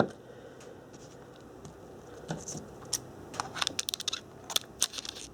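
A cardboard box and its packaging being handled: faint scratching and rubbing, then a run of small sharp clicks and taps in the second half.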